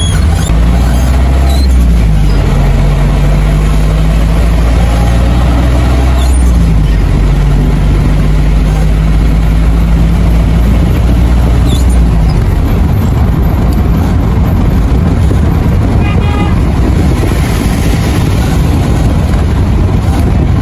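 Car engine running with a steady low hum that shifts in pitch about two seconds in and again around six seconds, then gives way after about twelve seconds to steady tyre and road noise.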